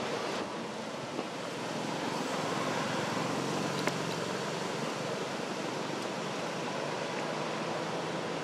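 Steady, even rushing noise of wind outdoors, with a faint click about four seconds in.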